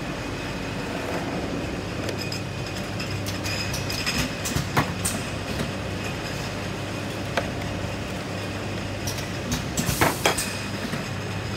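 Steady mechanical hum of a rotary jar-capping machine running, with a few sharp clicks and clinks of glass jars and metal parts being handled, the loudest near the end.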